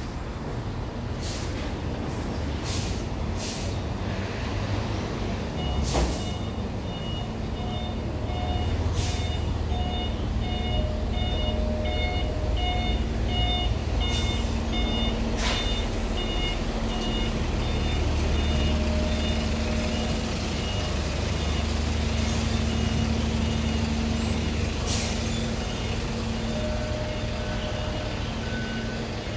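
Truck engines running in the background, with reversing beepers sounding about twice a second for much of the stretch and a second, lower beeper near the end. Occasional sharp knocks or clacks cut through.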